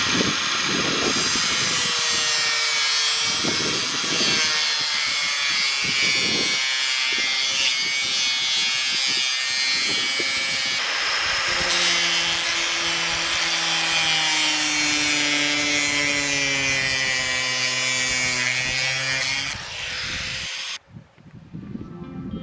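Angle grinder with an abrasive cut-off wheel cutting corrugated galvanized steel roofing panels: a loud, steady, high-pitched screech of the disc in the metal over the motor's whine. The whine sinks slightly in pitch during the later cut, and the sound stops shortly before the end.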